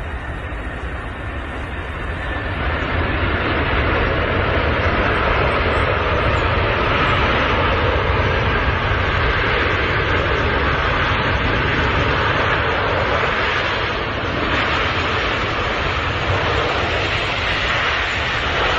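Airplane noise: a steady rushing sound that swells over the first few seconds, then holds.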